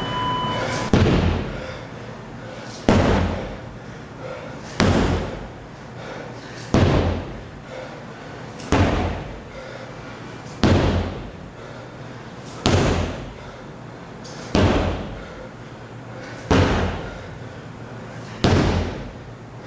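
Sledgehammer strikes, one heavy slam about every two seconds, ten in all, at a steady working pace.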